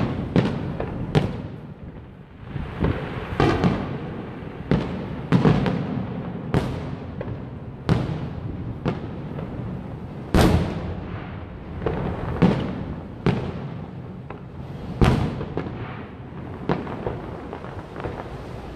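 Aerial firework shells bursting in a fireworks display: a quick, irregular string of booms about a second apart, the loudest ones about ten and fifteen seconds in. A stretch of rapid crackling comes about three and a half seconds in.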